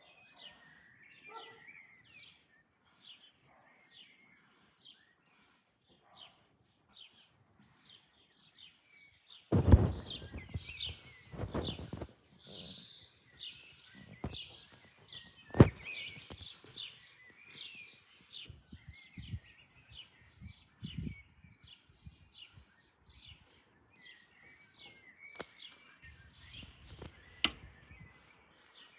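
Small birds chirping over and over, about twice a second. From about ten seconds in, loud low rumbling noise comes and goes, with a sharp knock near the middle.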